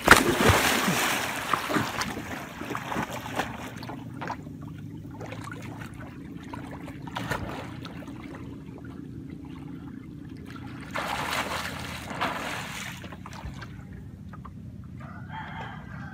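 A loud splash into river water at the start, fading over a couple of seconds into sloshing and trickling water, with a second stretch of splashing about eleven seconds in.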